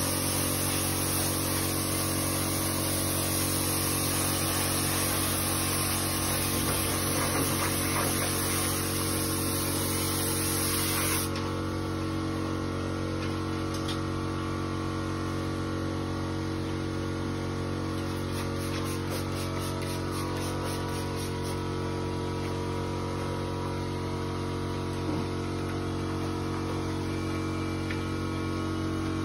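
Spray gun hissing as chrome is sprayed on, over a steady electrical hum; the hiss cuts off suddenly about eleven seconds in, leaving the hum running alone.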